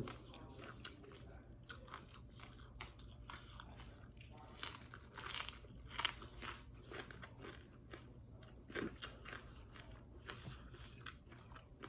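Close-up chewing of crispy fried taro-and-shrimp fritters with lettuce: a run of irregular crisp crunches, thickest about halfway through.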